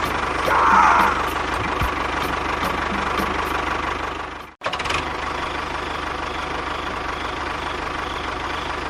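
Small engine running steadily with a fast, even knocking beat. It drops out abruptly for a moment about halfway through, then carries on.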